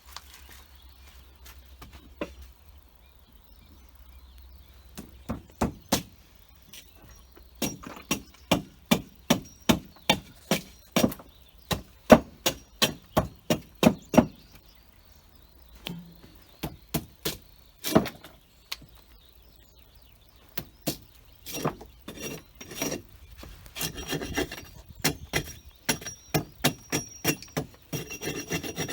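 Runs of sharp knocks on a firewood log, about two a second, with quieter scraping between, as the bark is worked off the log to check for wood-boring beetles living underneath.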